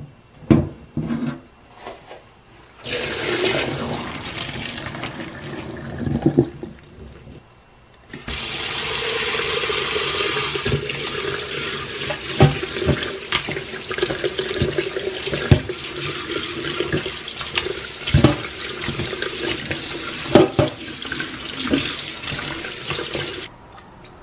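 Kitchen tap running cold water over cooked noodles in a perforated stainless-steel colander while they are rubbed and rinsed by hand, with scattered knocks throughout. The water runs in a short stretch, pauses briefly, then runs longer and stops just before the end, after a few knocks at the start.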